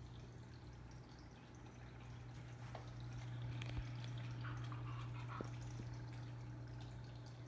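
Aquarium filter and pump running: water trickling and dripping over a steady low motor hum.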